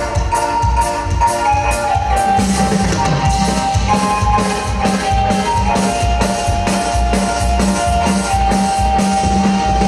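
Live band playing an instrumental dance tune: drum kit with regular cymbal strokes keeping a steady beat under a keyboard melody, guitar and bass.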